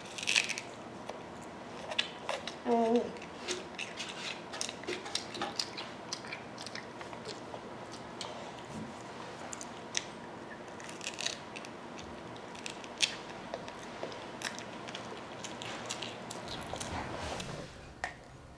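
A toddler biting and chewing raw broccoli: scattered soft crunches and wet mouth clicks, with a brief murmur from the child about three seconds in.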